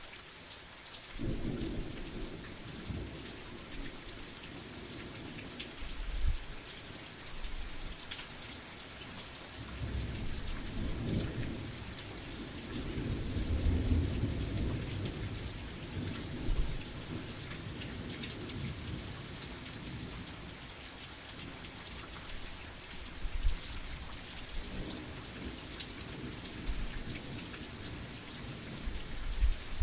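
Steady rain falling, with thunder rumbling low underneath: the rumble comes in about a second in, swells strongest near the middle, and rolls in again later.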